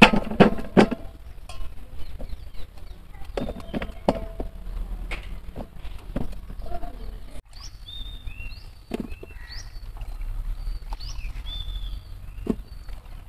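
Scattered sharp knocks and clatter, loudest in the first second, with birds chirping repeatedly through the second half.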